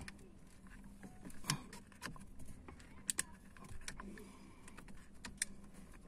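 Small plastic clicks and knocks as the turn-signal and headlight stalk switch assembly is handled and pushed into place on the steering column, with three sharper clicks about one and a half, three and five and a half seconds in.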